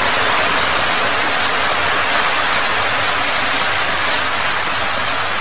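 Fish thrashing at the surface of a crowded tank in a feeding frenzy: a loud, steady rush of splashing water.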